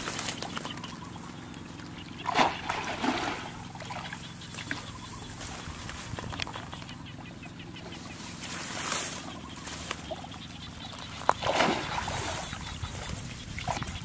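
Muddy water splashing and sloshing as hands grope underwater for fish in a flooded rice paddy, with a few louder splashes about two seconds in and again near the end.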